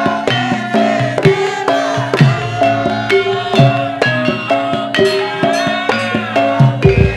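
Javanese gamelan music of the lengger dance: hand drums beating a busy rhythm, some strokes falling in pitch, over ringing metallophone tones.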